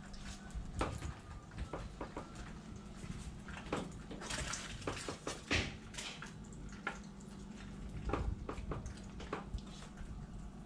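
Quiet kitchen room tone with a low steady hum, broken by scattered soft clicks and knocks.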